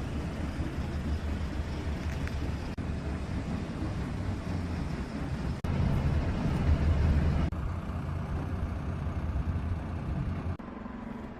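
Road-vehicle rumble, a steady low engine and road noise. It changes abruptly several times, about every two to three seconds, and is loudest in the middle and thinning near the end.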